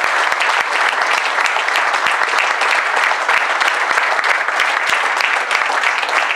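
Audience applauding: many hands clapping in a steady, dense wash.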